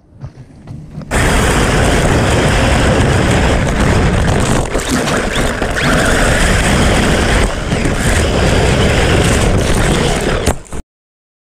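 Onboard audio of an Arrma Talion RC truggy running on 6S power across beach sand: a loud, steady rush of motor, drivetrain and tyres throwing sand and grit. It starts suddenly about a second in and cuts off abruptly near the end.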